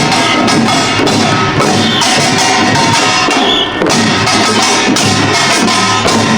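Korean pungmul percussion ensemble playing Pilbong-style nongak: fast, dense clanging of kkwaenggwari small gongs over janggu and buk drums, steady and loud throughout.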